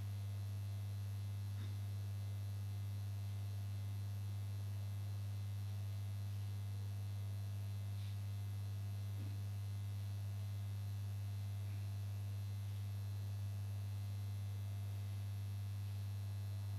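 Steady low electrical mains hum with a faint background hiss, unchanging throughout.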